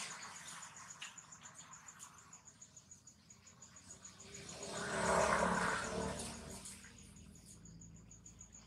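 Insects trilling in a steady, fast, high-pitched pulse. A louder swell of noise rises and fades about five seconds in.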